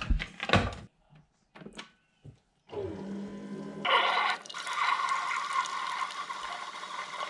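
Keurig single-cup coffee maker: a few clicks and knocks as its lid is shut, then about three seconds in the machine starts up with a low hum, and a second later coffee pours steadily into a mug.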